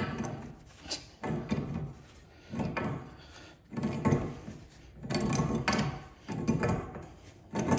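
Pipe wrench turning a threaded steel pipe fitting: a series of short metal scrapes and clunks, about one a second, as the jaws bite, turn and are reset on the pipe.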